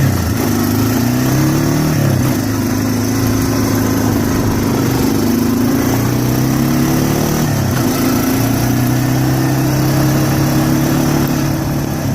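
Honda 4Trax 300 ATV's single-cylinder four-stroke engine running while the ATV is driven. The engine speed rises over the first couple of seconds, holds steady, then dips briefly and picks up again. The newly replaced front axle runs quiet, with no clicking or clacking.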